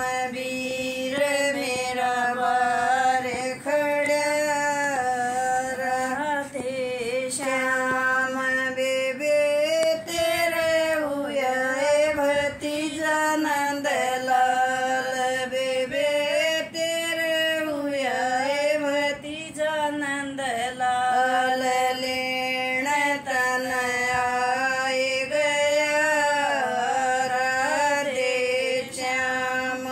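An elderly woman singing a song unaccompanied, in long, drawn-out phrases with held notes and few breaks.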